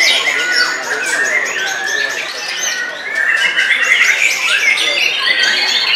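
Several caged white-rumped shamas singing at once: a dense, continuous tangle of loud whistles, trills and rapid chattering phrases. It eases a little around the middle, then builds again.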